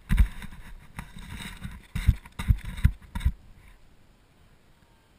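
Dull thumps and rustling from the wearer moving while seated in the snow, picked up by a head-mounted action camera: about five heavy bumps, then it goes quiet about three and a half seconds in.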